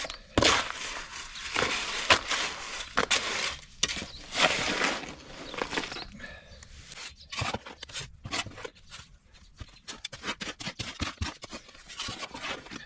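Concrete mix being stirred with a shovel in a plastic mixing tub: gritty scrapes of the blade through the wet mix and against the tub, about one a second. About halfway through they give way to quicker, lighter scraping and tapping.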